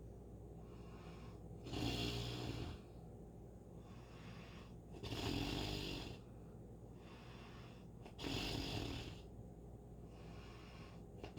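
A sleeping dog snoring slowly and evenly, about one snore every three seconds, each lasting around a second. There are three snores, and a fourth begins right at the end.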